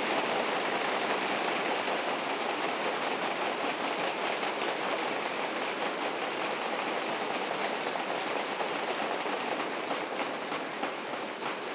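Audience applauding steadily in a large hall, slowly dying down near the end.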